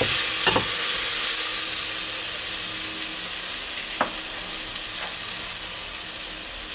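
Onions, garlic and tomato paste sizzling in hot oil in a stainless steel pot, with a wooden spatula scraping through them about half a second in and one sharp knock of the spatula on the pot about four seconds in.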